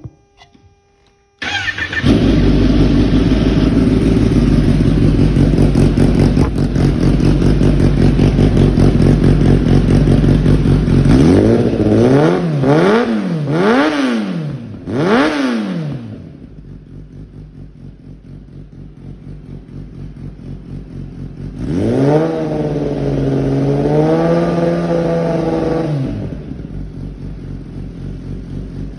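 Kawasaki ZX-10R SE's inline-four, breathing through a Black Widow 200 mm exhaust with the dB killer removed, starting about a second and a half in and running steadily loud, then blipped through several quick revs. It settles to a quieter idle, takes one longer held rev, and drops back to idle; a low growl.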